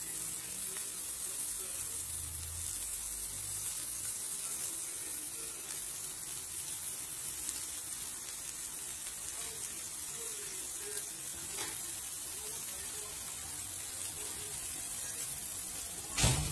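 Pork chops sizzling on a wire rack over an electric heating element: a steady, fine hiss. A brief bump near the end.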